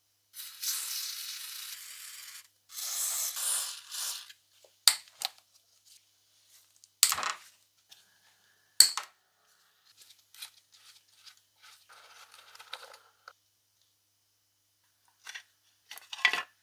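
Two hissing bursts of about two seconds each, then a few sharp metal clinks and light scraping of hand tools on the metal and plastic housing of a Keyang PHD-38 demolition hammer drill as its handle screws are undone.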